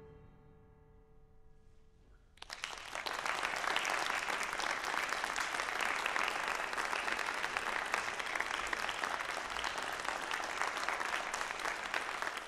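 The last notes of a percussion ensemble ring and die away over about two seconds. Then an audience starts to applaud suddenly, and the clapping carries on steadily.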